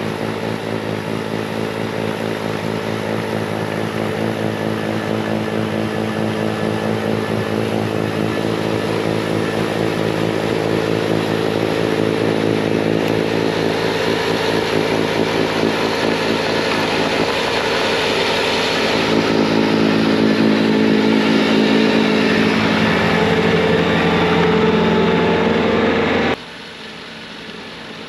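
Bobcat T66 compact track loader's diesel engine running steadily at full throttle, driving a snowblower attachment through wet snow. It grows louder over about twenty seconds, then drops off sharply near the end.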